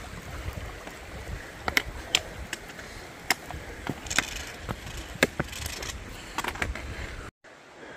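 A hiker's steps across loose slate rocks beside a creek, with sharp clicks and knocks of boots or gear on stone every half second or so, over the steady wash of the creek water. The sound cuts off suddenly near the end.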